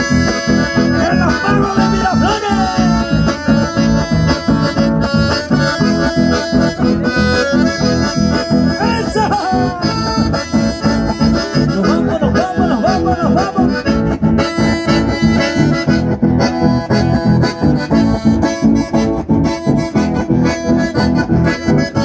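Live chamamé music: button accordions playing the melody over a steady, lilting dance rhythm, with acoustic guitar accompaniment.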